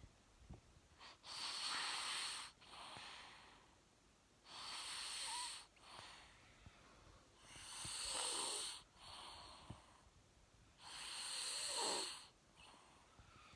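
A sleeping person snoring: four slow, even snores about three seconds apart, each a strong airy breath followed by a quieter one.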